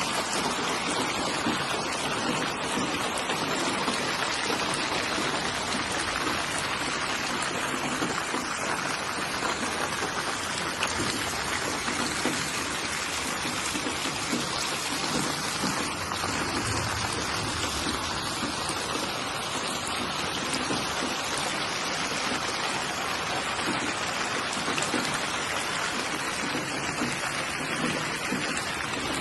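Steady, even rainfall, drops pattering on surfaces in a constant hiss.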